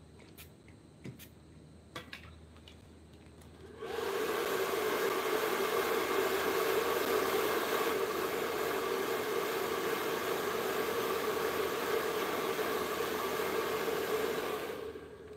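A powered tool with a steady whirring, blowing noise, switched on about four seconds in and running evenly for about eleven seconds before winding down near the end; a few light clicks come before it.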